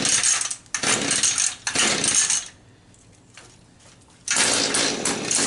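Mantis rototiller's two-stroke engine being pull-started on full choke: three quick rope pulls cranking the engine, a pause, then a fourth pull. It has not run for years.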